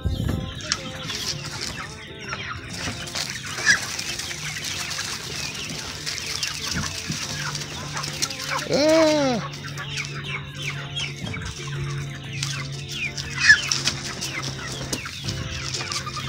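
Chickens clucking and chirping softly, with one longer, louder call about nine seconds in that rises and falls in pitch. A steady low hum comes in partway through, and there are two sharp knocks.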